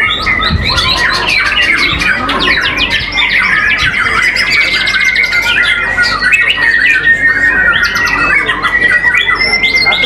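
Several white-rumped shamas (murai batu) singing at once in a songbird contest: a dense, loud mix of fast trills, rapid clicking runs and sweeping whistles. A steady high tone runs beneath the song from about three seconds in.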